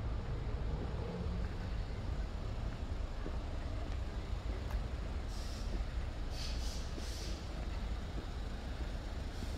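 Steady low rumble of motor vehicle noise, with a few short hissing sounds about midway.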